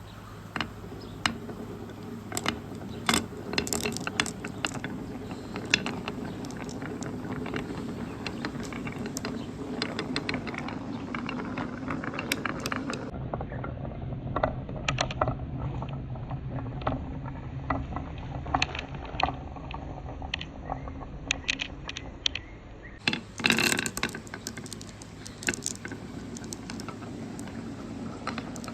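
Marbles rolling and clacking along a marble run track: many irregular sharp clicks over a steady low rolling rumble, with a dense burst of clatter about 23 seconds in.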